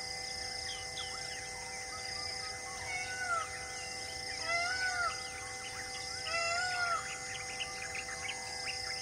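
Birds calling over a steady insect drone: many short, quick chirps, with louder arching whistled calls about three, four and a half and six and a half seconds in.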